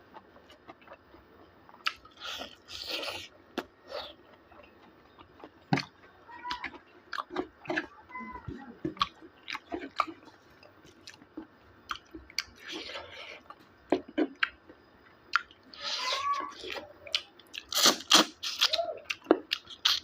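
A person chewing and crunching pork and bamboo shoot close to the microphone, with scattered short clicks and wet mouth sounds.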